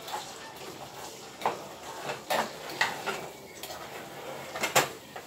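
A utensil scraping and clinking against a stovetop pan as pieces of soy chick'n patty are stirred and broken up, with several sharper clinks spread through.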